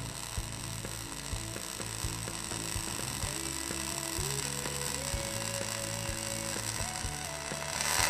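Quiet background music with a steady beat of clicks and sustained notes that step from pitch to pitch, over a steady high hiss.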